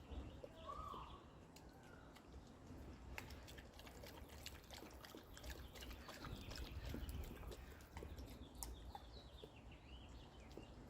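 Faint outdoor ambience: birds chirping now and then in the background, with a low rumble and scattered small ticks.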